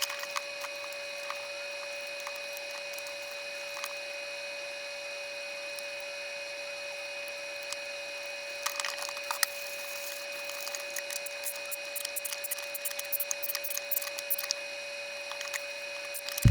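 A steady background whine with two held tones, and from about halfway through, scattered light clicks, taps and rustling of items being handled for packing.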